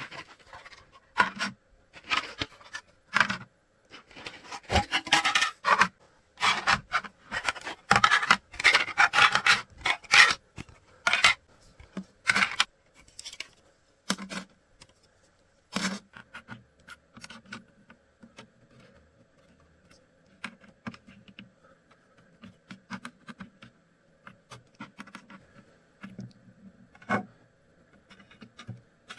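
Hands handling and fitting parts during assembly of a 3D-printed PC case: irregular scraping, rubbing and clicking. It is busiest in the first half and sparser and quieter in the second, over a faint steady hum.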